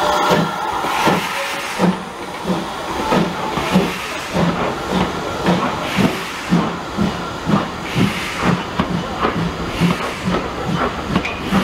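GWR 1500 class pannier tank No. 1501 pulling a train away, steam hissing at the start, then the coaches rolling past with a regular beat of knocks, two or three a second.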